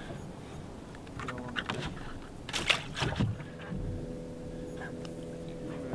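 A few knocks and clatters on a fiberglass bass boat's deck, then from about halfway through a steady electric hum from the boat's trolling motor running.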